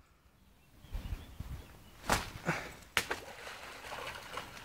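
A dog splashing into a shallow stream after a thrown stick. A few low thuds about a second in, then sharp splashes at about two and three seconds, followed by steady splashing as it wades and swims out.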